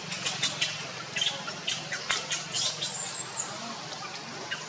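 Monkeys squeaking: a run of short, high-pitched squeaks several times a second, with one longer gliding squeal about three seconds in, over a steady low hum.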